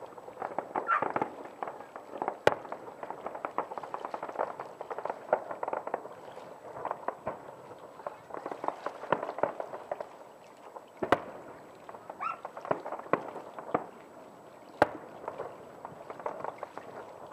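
Fireworks display: a dense crackling and popping of bursting shells, with a few single louder bangs standing out, about two and a half seconds in, around eleven seconds in and near fifteen seconds.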